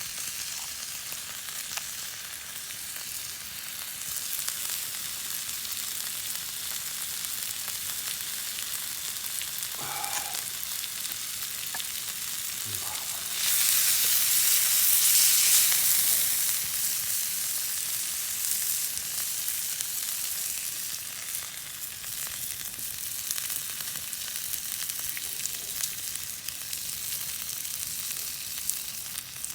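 Food sizzling in a hot pan over a campfire, a steady crackling hiss that swells louder for a few seconds about halfway through.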